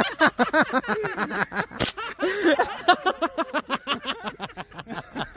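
Two airsoft pistols firing a fast string of sharp shots, several a second, with voices shouting over them.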